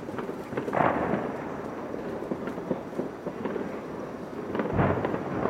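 New Year fireworks on the Taipei 101 tower: a continuous crackle of small bursts, with louder booms about a second in and again near the end.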